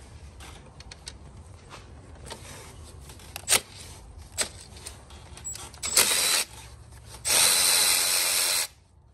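Cordless electric ratchet spinning a nut off the alternator's power-cable terminal: scattered clicks of the tool on the fitting, a short burst about six seconds in, then a steady run of about a second and a half near the end.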